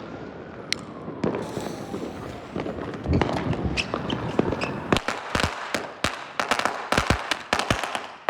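A string of firecrackers going off: a run of sharp, irregular bangs that gets denser and louder about three seconds in.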